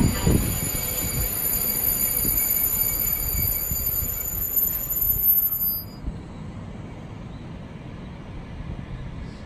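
JR Hokkaido 731 series electric train pulling out of the platform, its wheels rumbling on the rails under a high thin whine. The whine cuts off suddenly about six seconds in, leaving a fainter rumble as the train moves away.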